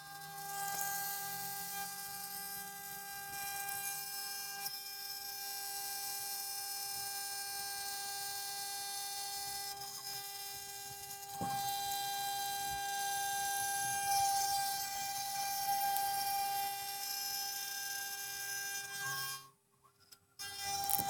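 CNC 6040 router spindle whining at a steady pitch as it mills aluminium, with several tones sounding together over a high hiss. It gets a little louder about halfway through and cuts out briefly near the end.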